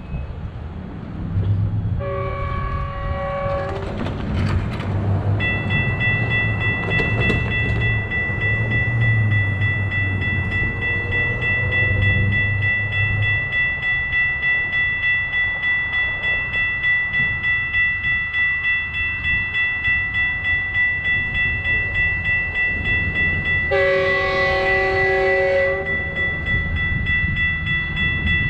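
Railroad crossing warning bell ringing steadily from about five seconds in. A Metrolink locomotive's multi-chime horn sounds a long blast about two seconds in and again about 24 seconds in, over a low rumble.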